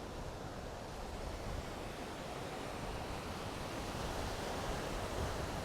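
Steady wash of ocean surf, swelling a little about four seconds in, with wind rumbling on the microphone.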